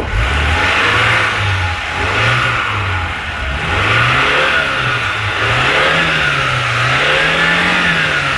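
Lada Zhiguli's engine revving up and down again and again as the driven rear wheel spins in deep snow, over a steady hiss of tyre churning snow.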